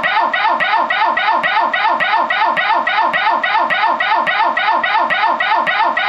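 A person's voice repeating one short, falling syllable about four times a second in an even, machine-like rhythm.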